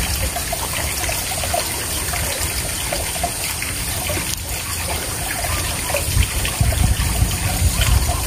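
Stream water trickling steadily, with low rumbles that grow stronger near the end.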